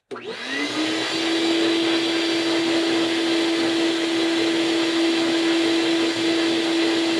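Shop vac switched on: its motor spins up over about the first second, the whine rising in pitch and then holding steady over a loud, even rush of air. It measures about 84 decibels on a sound meter.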